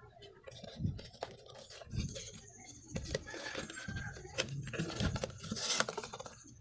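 Plastic holster cut from an oil bottle handled on a table, with its rubber strap and metal ring: irregular knocks, rustles and scrapes. A thin, high, steady whine starts about two seconds in.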